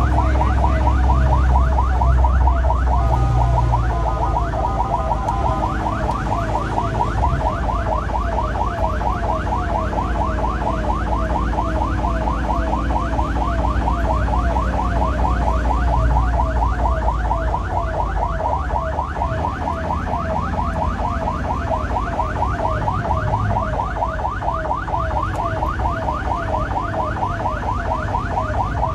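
Ambulance siren on a fast yelp, several rising-and-falling sweeps a second, heard from inside the moving ambulance over the low drone of its engine and road noise.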